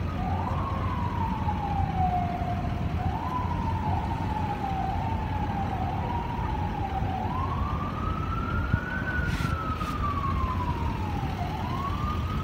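Emergency vehicle siren wailing, its pitch rising quickly and sliding slowly back down in about five uneven sweeps, the longest near the middle, over a steady low rumble.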